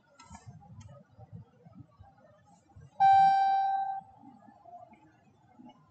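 A single steady electronic beep, about a second long, starting and stopping abruptly about three seconds in, over faint room noise.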